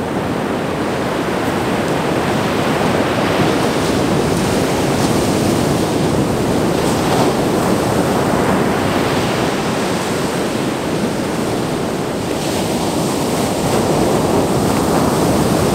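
Atlantic surf washing onto a sandy beach: a steady rush of breaking waves that swells and eases.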